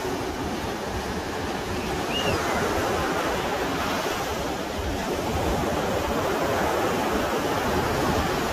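Ocean surf breaking on a sandy beach: a steady rush of waves washing in and out.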